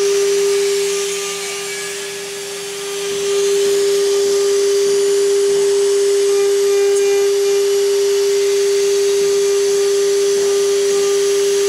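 Small CNC router spindle running with a steady high whine while its fine engraving bit carves a relief into wood, a noisy hiss over the whine. The hiss drops for a couple of seconds about a second in, then comes back.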